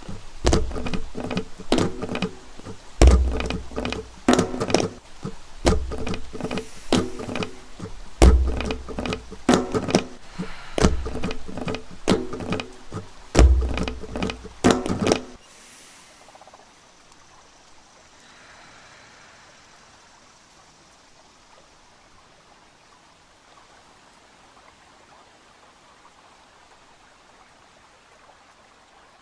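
Flamenco percussion: rapid sharp strikes with a deep thump about every two and a half seconds and some ringing pitched notes between them. It stops abruptly about fifteen seconds in, leaving only a faint steady hiss.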